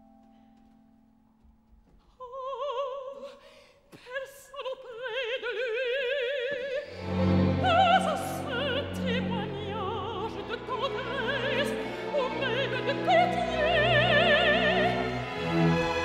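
Operatic mezzo-soprano singing in French with a wide vibrato. She comes in about two seconds in over faint held orchestral notes, and the full orchestra swells in beneath her about seven seconds in.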